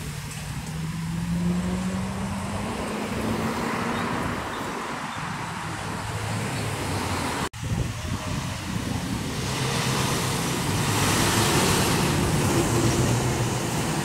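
City street traffic: cars passing, with an engine note rising in pitch over the first few seconds. In the second half a semi-truck pulling a dump trailer approaches and passes close, and the noise grows louder.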